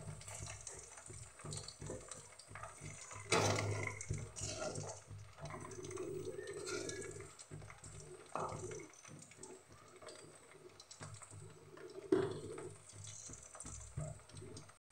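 Chicken pakodi pieces deep-frying in hot oil in a steel kadai, the oil bubbling and crackling steadily. A knock comes about three seconds in and another near twelve seconds.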